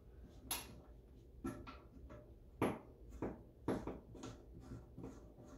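Irregular clicks and knocks, about one or two a second, of hands working the plastic hose fittings and supply valve behind a toilet during a bidet seat installation.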